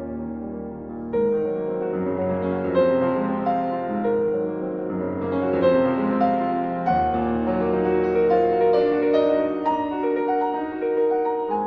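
Background piano music: a gentle melody over sustained chords, with a new phrase coming in about a second in.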